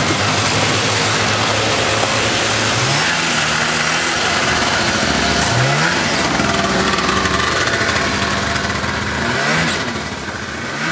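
Motorcycle engine running, blipped up in revs three times: about three seconds in, near the middle, and near the end.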